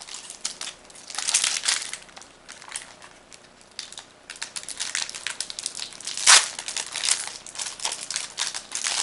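Magic: The Gathering booster pack's foil wrapper crinkling as it is handled and opened, in irregular crackly runs, with one sharper, louder crackle about six seconds in.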